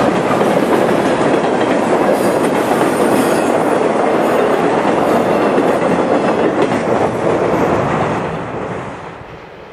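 Steel wheels of a long freight train's cars rolling past close by, a steady loud rumble on the rails. It fades away over the last couple of seconds.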